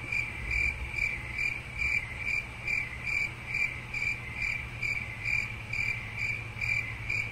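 Cricket chirping sound effect: an even run of short, single-pitched chirps, about two and a half a second, that starts and stops abruptly at the edit, the stock 'crickets' cue for an awkward silence.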